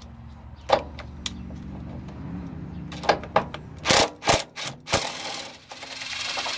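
A ratchet with an 18 mm socket on an extension unscrewing a truck's rear body-mount bolt: fast, even clicking for the first few seconds, then several sharp metal knocks and clanks as the bolt and lower cushion come loose.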